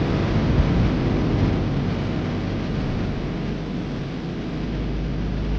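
Steady deep rumble with a hiss over it: a sound-design ambience for a space scene. It eases slightly past the middle and swells again near the end.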